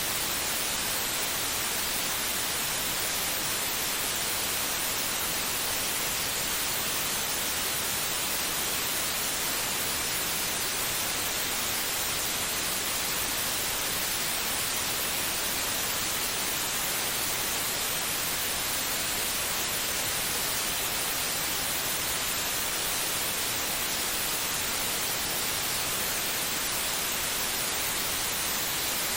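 Steady white noise: an even, unchanging hiss, brightest in the high range, with no pulse or variation.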